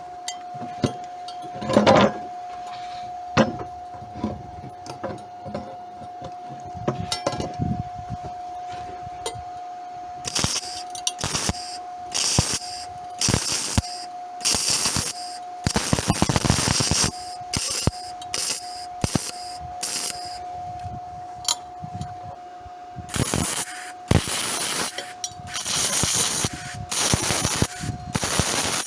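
MIG welder arc crackling on aluminium, run with the ordinary wire and shielding gas instead of argon: a series of welds that start and stop abruptly, some under a second, others a few seconds long, over a steady high whine.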